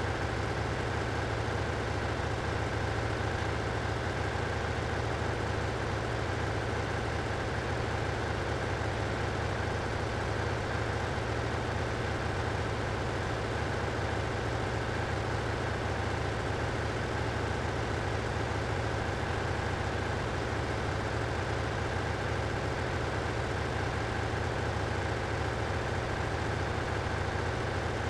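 Steady drone of ship's engine-room machinery: a constant low hum with a fainter high whine over it, unchanging throughout.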